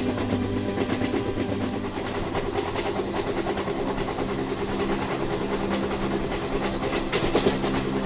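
A train running along the track: a steady engine drone with wheels clicking over the rail joints, and a brief louder clatter about seven seconds in.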